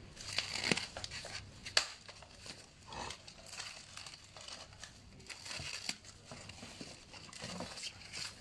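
Protective plastic and foam packaging on a new bicycle's frame crinkling and rustling as it is handled, with many irregular crackles.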